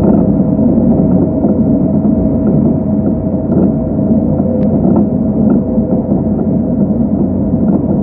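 Inside a moving train carriage: a steady rumble of the running train with a constant whine held throughout and a few faint ticks.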